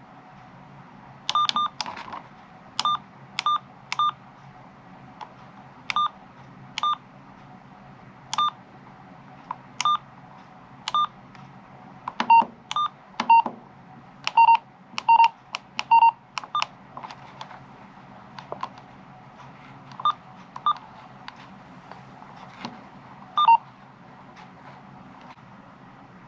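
Uniden BCD436HP handheld scanner giving out a string of short electronic beeps at irregular intervals, at two different pitches, over a faint steady hum.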